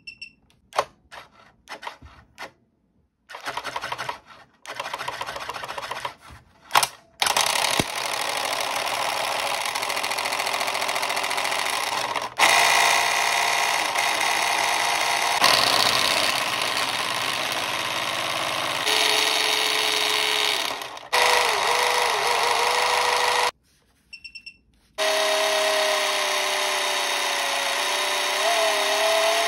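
A skeleton-hand Halloween toy's small electric motor and gearbox running loudly and rattling as a bench power supply drives it far above its rated voltage. It starts in short stuttering spurts, then runs continuously, stepping up in loudness as the voltage is turned up. It cuts out briefly near the end before starting again with a wavering whine, and short electronic beeps sound at the start and just before it restarts.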